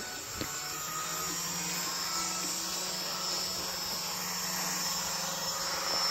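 A steady low hum under a hiss, with one sharp click about half a second in.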